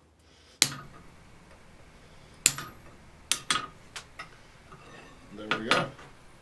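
Hand hammer striking a slot punch on red-hot mild steel over an anvil, punching out the slug: separate sharp metallic blows at uneven intervals, some with a brief ring, and a louder pair of knocks near the end.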